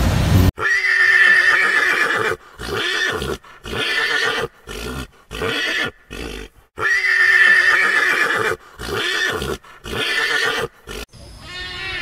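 Pony whinnying twice. Each whinny is one long call followed by a string of shorter, falling pulses about a second apart.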